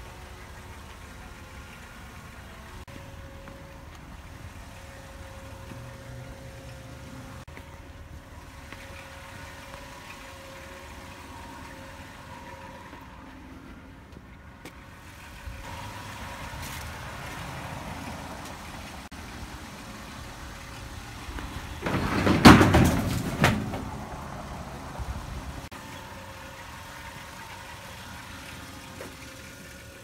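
A vehicle engine idling steadily with a low hum. About two-thirds of the way through, a louder burst of noise lasts a second or so.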